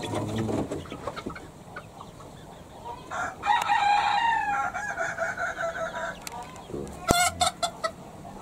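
Rooster crowing once, a single long crow of about three seconds in the middle; a few sharp knocks follow near the end.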